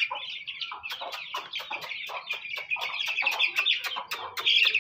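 A brood of chicks peeping rapidly and without a break, with a hen's short, lower clucks among the peeps; the peeping is loudest near the end.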